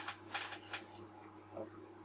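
Faint, short scrapes and clicks from small parts being handled during lens reassembly, over a low steady hum.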